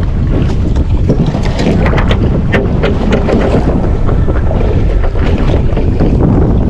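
Wind buffeting the microphone on an open fishing boat, a loud steady low rumble, with scattered small clicks and knocks, most of them in the first half.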